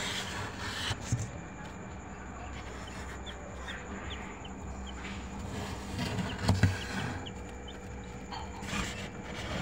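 Newly hatched desi chicks peeping, with short high chirps scattered through, over a steady background hum. A couple of dull thumps come a little past the middle.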